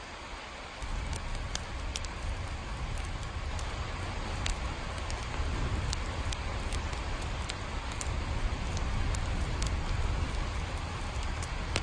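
Steady rain with scattered sharp drops pattering. About a second in, a deep low rumble comes in underneath and stays.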